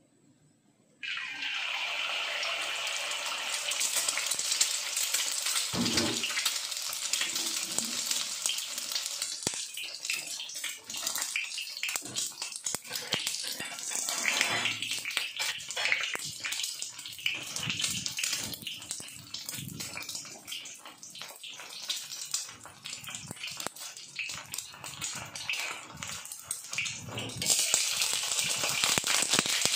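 An egg dropped into hot oil in a freshly seasoned cast iron wok, sizzling with many small pops. The sizzle starts suddenly about a second in and grows louder near the end, as a spatula works under the egg.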